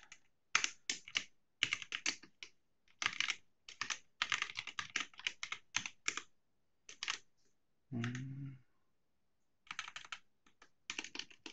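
Typing on a computer keyboard: quick runs of keystroke clicks broken by short pauses. A short hummed vocal sound comes about two-thirds of the way through.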